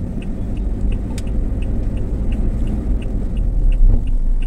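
A car's turn-signal indicator ticking steadily, about two and a half ticks a second, for a left turn, over the low rumble of the engine and tyres inside the cabin. A sharper click about a second in.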